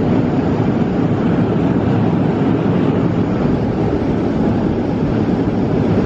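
Newly installed grain bucket elevator leg and its conveyors running empty, a steady, loud mechanical noise with no changes.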